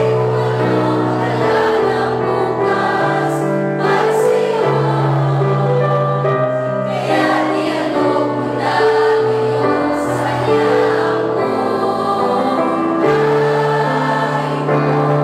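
A church choir of young singers, mostly women, singing a hymn together in long held notes, over sustained low accompanying notes that change every second or so.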